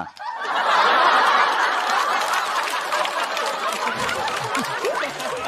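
Studio audience laughing after a punchline, swelling about half a second in and slowly tapering off.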